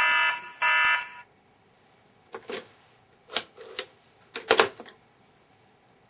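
Two loud buzzing, alarm-like electronic tones back to back, about half a second each, played from the laptop as the audio file that the rotary-phone command has triggered. From about two seconds in come a few short clusters of sharp clicks.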